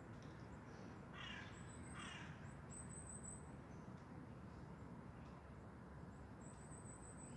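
Two short harsh bird calls, about a second in and again just under a second later, over faint outdoor background.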